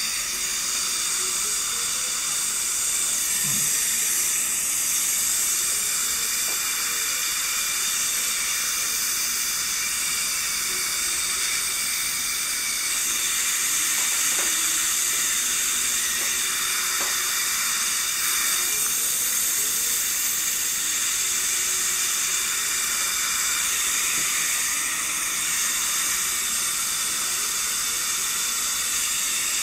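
Steady hiss of a dental chair's suction running without a break while braces are bonded to the teeth.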